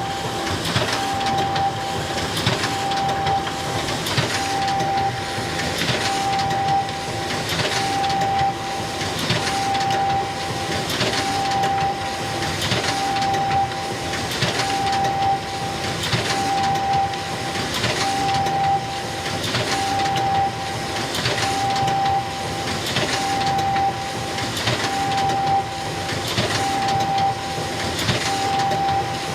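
Xerox photocopier running a continuous copy job, repeating the same cycle of a short steady whine and a paper swish about every second and three-quarters.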